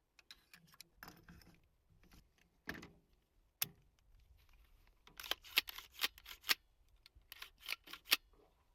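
Handling noise: a scattering of small sharp clicks and light rattles, with two quick clusters of clicks in the second half.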